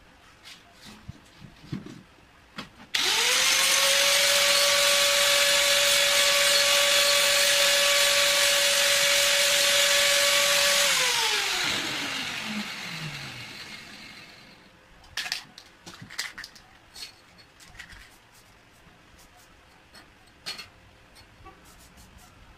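An electric angle grinder starts suddenly and runs steadily with a high whine for about eight seconds, its disc held against a small metal part. It is then switched off and spins down, the whine falling in pitch as it slows.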